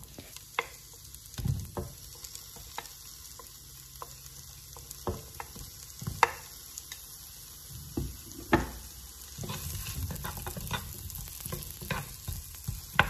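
Chopped onion pieces dropping into melted butter in a nonstick pot as a wooden spoon scrapes them off a plate, with scattered sharp knocks of the spoon against plate and pot. A light sizzle rises about two-thirds of the way in as the onions are stirred in the butter.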